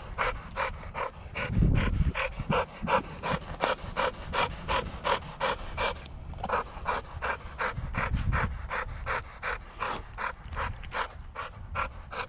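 Dog panting hard and steadily, about three to four breaths a second, winded from chasing and catching an RC car. Two low rumbles come through, one about two seconds in and one near eight seconds.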